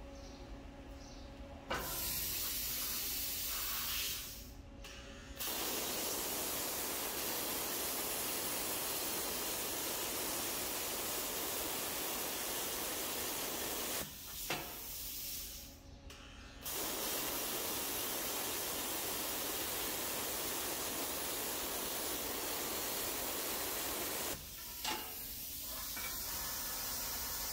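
Hypertherm Powermax 900 plasma cutter cutting steel plate: a steady, loud hiss of the plasma arc in long runs, broken briefly about 4 and 14 seconds in. Near the end the cut stops with a click and a softer hiss carries on.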